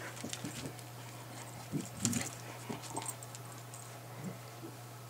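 Bernese Mountain Dog puppies and their mother moving about on a concrete patio: light claw taps and scuffles, with a few soft, short puppy noises about two seconds in.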